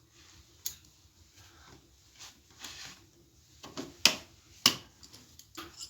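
Sharp metallic clicks and clinks as the clutch basket of a Voskhod-2 motorcycle is worked on by hand, its small clutch springs being unhooked with a homemade wire hook. A few scattered clicks, the loudest two about four and four and a half seconds in.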